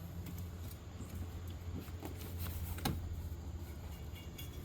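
Faint clicks and handling noises from hands working a spark plug wire loose in an engine bay, the clearest click about three seconds in, over a steady low hum.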